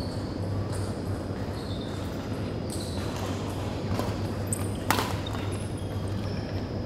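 Badminton rally: racket strings hitting the shuttlecock in a few sharp smacks, the loudest about five seconds in, with short squeaks of shoes on the wooden court floor. A steady low hum runs underneath.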